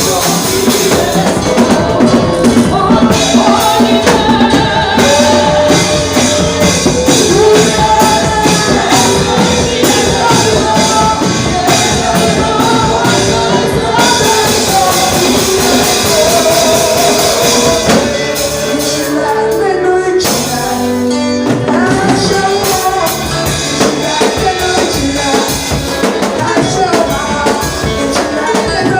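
Live church worship music: singing over a band with drums, the low end dropping out briefly about two-thirds of the way through before the full band returns.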